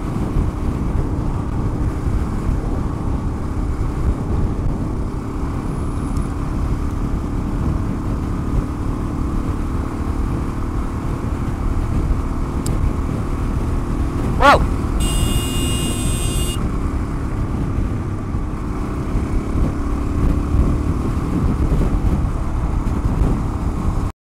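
Suzuki DRZ400S single-cylinder four-stroke engine running at a steady cruise, mixed with heavy wind rush over the helmet. A short, sharp blip comes about fourteen seconds in, followed by a high buzzing tone for about a second and a half.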